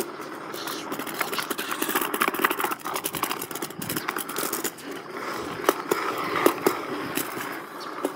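RipStik caster board wheels rolling over stamped, brick-patterned paving, with an irregular rapid clatter of clicks as they cross the grooves.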